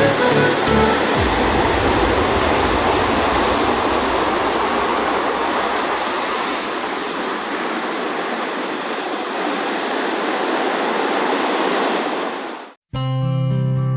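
Ocean surf, a steady rush of breaking waves, with a background music track fading out in the first second. It cuts off abruptly near the end, and acoustic guitar music begins after a short gap.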